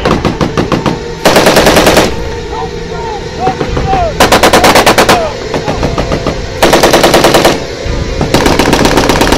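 Belt-fed machine gun firing in four long bursts of rapid shots, about a second each, with scattered single shots between them.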